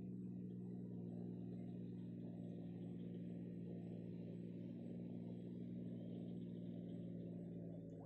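A steady low hum of several held tones, like a motor running at a distance, easing off slightly near the end.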